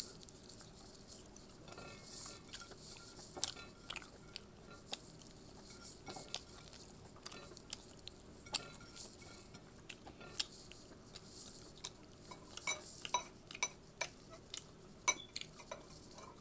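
Close-up eating sounds: a person chewing with scattered sharp mouth and lip clicks, plus occasional light clinks of tableware. The clicks come irregularly and grow more frequent in the last few seconds.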